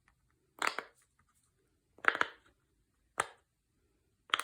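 Silicone bubbles of a pineapple-shaped Pop-It fidget toy being pressed through one at a time, giving four sharp pops about a second apart.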